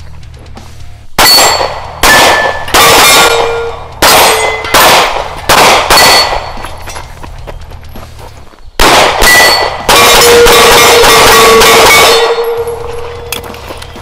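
Handgun shots fired in quick strings at steel targets, each hit clanging, with the steel plates ringing on in held tones after the strikes. The first string starts about a second in; after a pause a second string ends in a fast run of shots with a long ring.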